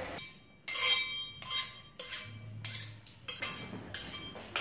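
Metal kitchen utensils clinking as they are dropped into a tin can: a run of separate clinks, each with a short metallic ring.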